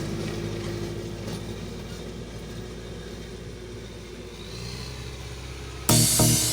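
Tractor engine running steadily at a constant speed. About six seconds in, loud electronic music with a beat starts abruptly over it.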